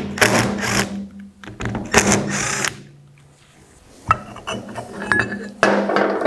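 Cordless drill-driver spinning out the backing-plate screws of a Hemi engine oil pump in short bursts, twice in the first few seconds. Light metallic clicks follow as the screws and plate are handled, then another burst near the end.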